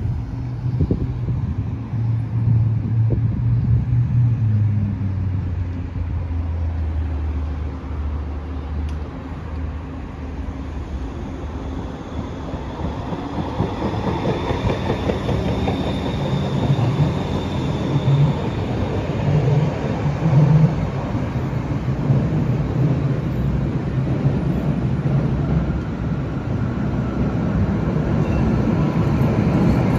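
Siemens Combino NF8U low-floor light-rail car approaching and passing: electric drive hum that steps down in pitch, then wheels rumbling on the rails as it goes by, with a faint high whine. Near the end another tram draws close and the rumble grows louder.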